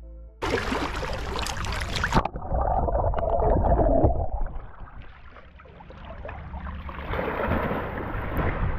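River water splashing loudly around the microphone, then a muffled, gurgling stretch with the microphone under the surface, then an Australian Shepherd swimming and splashing through the river after a toy.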